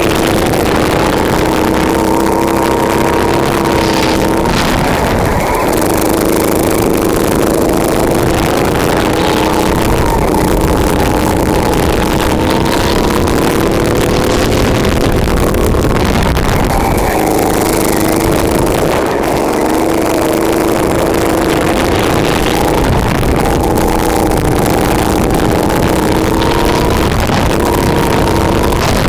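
Kart engine heard onboard at racing speed. Its note climbs along the straights and drops off for the corners, sagging and rising again about three times.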